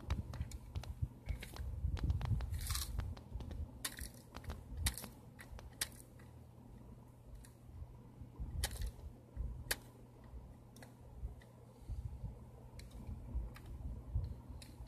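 Toy front-loader garbage truck being worked by hand: irregular plastic clicks and rattles as the arms and bin are raised over the cab and lowered, over low handling rumble.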